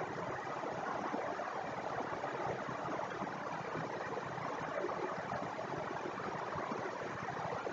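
Steady, even background hiss with no distinct events: room tone picked up by the recording microphone.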